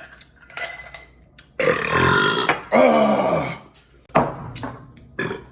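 A man belching loudly after drinking beer: two long burps, one after the other, the second falling in pitch.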